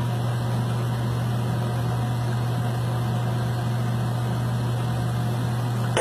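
Steady low machine hum with a hiss above it, like a motor running, holding an even level throughout.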